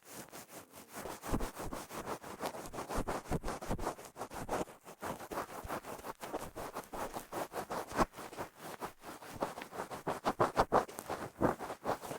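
Close, rapid scratching and rubbing on the ear of a KU100 dummy-head microphone, in irregular strokes several times a second: ASMR ear-cleaning sounds.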